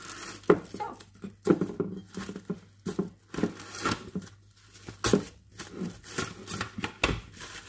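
Plastic cling film being pulled off its roll, stretched over a bowl and torn off against the box's cutter edge: a string of irregular crinkles, crackles and short rips.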